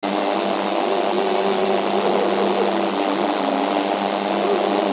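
Loud, steady rushing noise with a faint voice chanting underneath it, its pitch wavering slowly.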